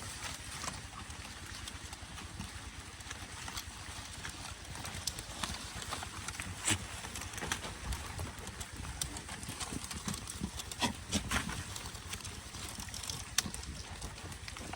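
Goats feeding on leafy branches: irregular rustles and sharp clicks, a few of them louder.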